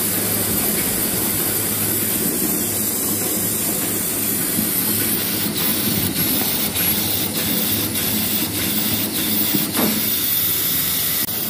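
Chocolate bar double-layer folding wrapping machine running: a steady mechanical whir and hiss with a low hum. From about halfway through, a light regular clicking sounds about one and a half times a second.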